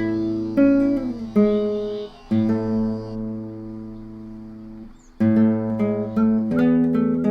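Acoustic guitar music: plucked notes and chords, with one chord left ringing and fading for about three seconds before the playing picks up again.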